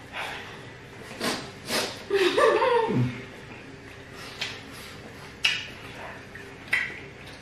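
A person hissing sharp breaths in and out through the mouth against the heat of spicy food, then a short groaning vocal sound that slides down in pitch about two seconds in. A few sharp mouth smacks or clicks follow in the second half.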